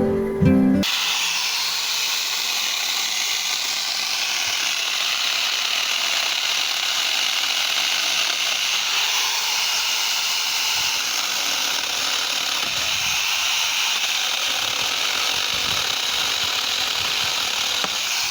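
Angle grinder fitted with a mini chainsaw adapter running steadily, a constant high, hissy whir. Guitar music cuts off under a second in.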